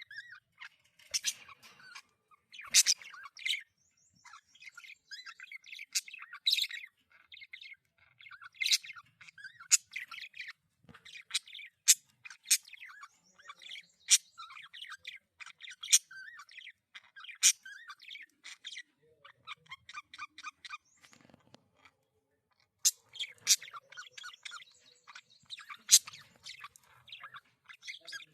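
Budgerigars warbling and chattering in a fast run of notes, broken by loud, sharp chirps every second or two.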